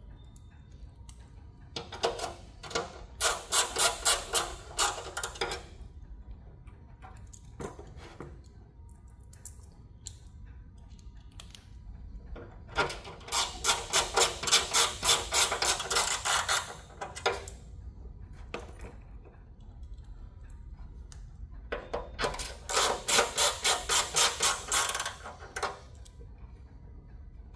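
Mini ratchet clicking in three runs of rapid ratcheting, a few seconds each, as machine screws are run into the plastic bed of an infant warmer, left loose until all are in.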